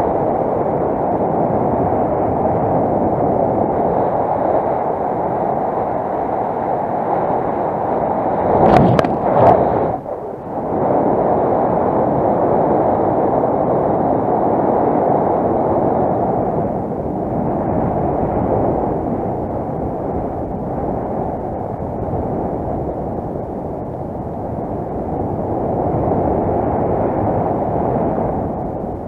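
Wind rushing over the camera's microphone in paragliding flight: a steady, loud noise of air. About nine seconds in, a stronger buffet and two sharp knocks.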